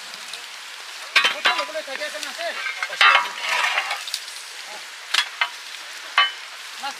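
Irregular crackling and rustling as rescuers push through tall grass and scrape and probe the muddy ground, in a few clusters, with faint voices behind.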